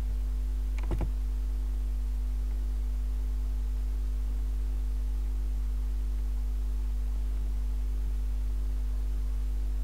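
Steady electrical hum, a low buzz with several steady overtones, picked up by the recording chain. A brief short sound is heard about a second in.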